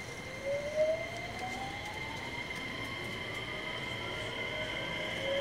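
JR West 321 series electric train's Hitachi IGBT VVVF inverter and traction motors whining as the train accelerates: a tone rising steadily in pitch over a steady high tone, with a second rising tone starting near the end.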